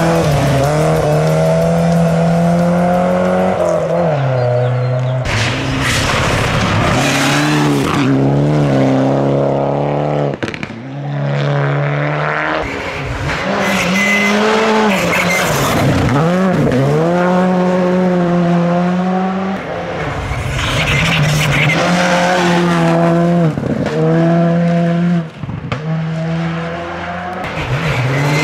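Rally cars, among them a Volvo saloon and a Škoda Fabia, passing flat out on a gravel stage. The engines rev high and drop back again and again with each gear change and lift, mixed with the hiss of tyres on loose gravel.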